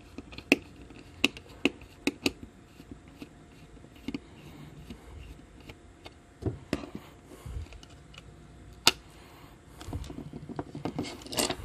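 Irregular sharp clicks and taps with light scraping from a small plastic light housing being handled and pried at as its circuit board is worked loose. The loudest clicks come about half a second in and again near 9 seconds.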